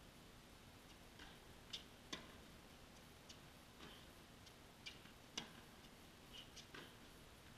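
Tennis rally: a string of sharp, irregularly spaced knocks of the ball off racket strings and the court, the two loudest about two and five seconds in.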